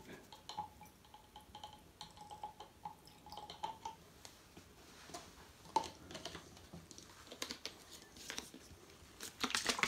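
Faint drips and small plastic clicks as red dye is squeezed from a dropper bottle into a bottle of water for PC coolant. Near the end comes a brief slosh as the capped bottle is shaken.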